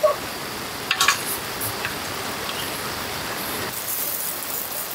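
Food sizzling in a frying pan as it is stirred, with a few sharp clicks of a utensil against the pan about a second in.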